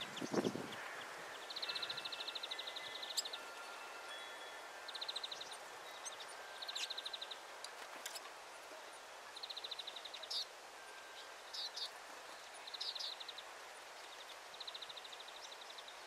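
Small songbirds calling: about six rapid trills, each roughly a second long and a few seconds apart, with thin steady whistled notes in between. A dull knock sounds right at the start.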